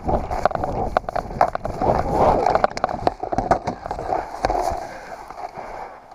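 Running footsteps through dry grass, quick and even at about three a second, with gear knocking against the body. A stretch of heavy grass rustling comes about two seconds in, and the steps then thin out and the noise dies down near the end.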